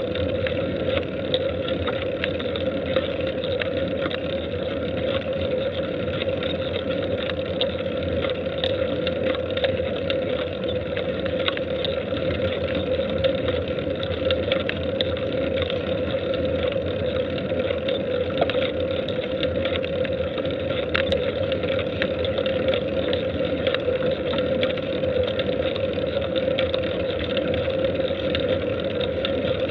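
Steady wind and road noise picked up by a camera mounted on a bicycle climbing at low speed, with a few faint ticks from bumps.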